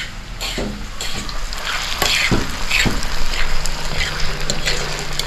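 Ackee and saltfish with peas, onion and peppers sizzling in a frying pan while being stirred, the utensil scraping against the pan. The sizzle grows louder about a second in.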